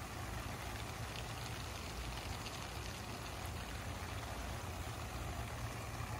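Vintage Nelson Dial-A-Rain oscillating lawn sprinkler running: its fan of water jets hisses and patters steadily down on the grass as it sweeps. A steady low rumble runs underneath.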